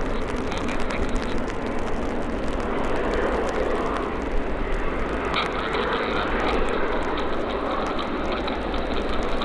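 Airbus A380's jet engines at taxi power: a steady jet hum as the airliner taxis past, swelling slightly about three seconds in and again in the second half.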